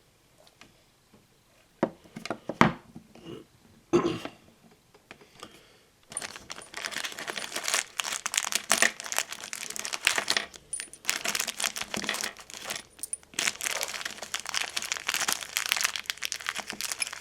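A few sharp knocks of small parts being handled, then from about six seconds on a long spell of plastic packaging crinkling and rustling.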